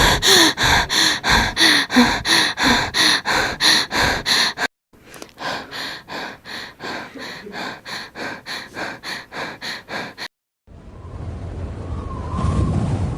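Rapid rhythmic panting, about four breaths a second, loud at first, then a quieter run of the same after a brief cut. Near the end it cuts to a rising rushing noise.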